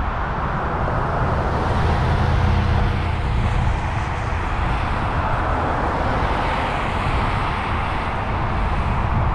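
Wind buffeting the microphone of a bike-mounted action camera while riding, with a steady hiss of road and traffic noise that swells and eases.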